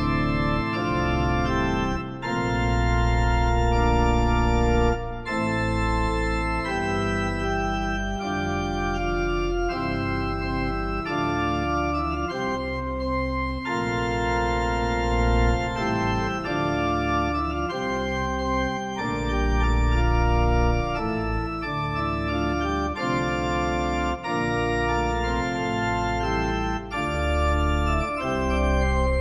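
Yamaha P-125A digital piano playing one of its organ voices: held chords over a low bass line.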